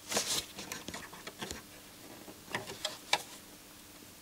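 Scattered light clicks and ticks from fingers handling the wiring and parts inside an opened CD player's chassis, with a short rustle at the very start.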